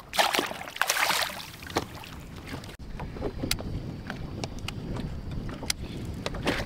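A splash in the first second as a fish is let back into the lake. Then wind on the microphone and small waves lapping against the boat's hull, with scattered light clicks and knocks.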